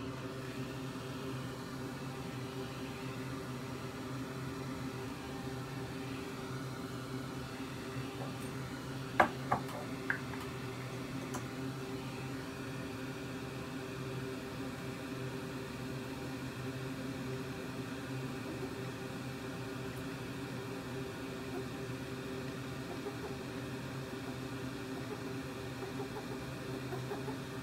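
A steady electrical hum from running bench equipment, with three sharp clicks close together about a third of the way through.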